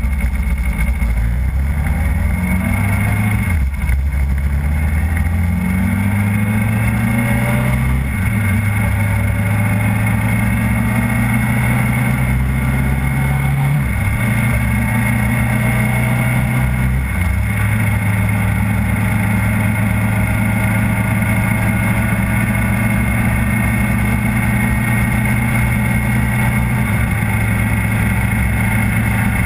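Motorcycle engine pulling away and climbing through the gears, its note rising and dropping at each upshift in the first several seconds, then running at a steady moderate cruise with small changes of throttle.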